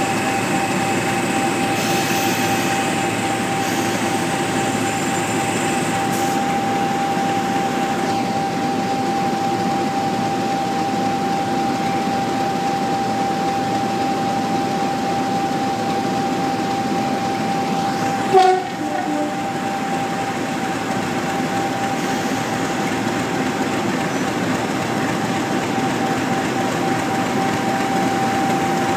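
Class 50 diesel locomotive's English Electric 16-cylinder engine idling at standstill with a steady whine. About two-thirds of the way through comes one brief, loud toot of its horn.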